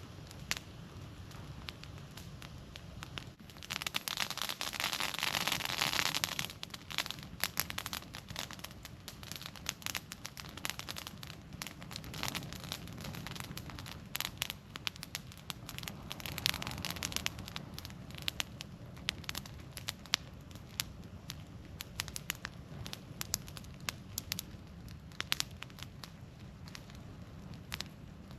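Wood campfire crackling with frequent sharp pops and snaps over a low, steady rumble. About four seconds in, the fire hisses loudly for a couple of seconds, and it hisses again, more softly, around the middle.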